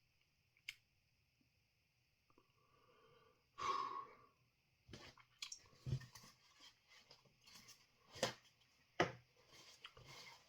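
A single harsh cough about three and a half seconds in, from a throat irritated by chilli dust, followed by scattered sharp clicks and knocks of things being handled.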